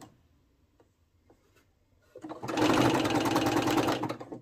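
Electric sewing machine stitching a zigzag seam in one short run of about two seconds. It starts about halfway in, after a quiet pause broken by a few faint clicks.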